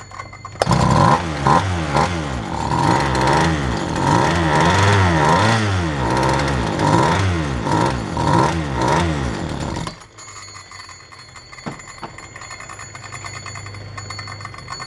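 Poulan chainsaw's two-stroke engine, with no bar or chain fitted, starts and runs, its speed rising and falling about once a second. It stops suddenly after about nine seconds. The engine runs but won't idle, and its carburetor is not yet tuned.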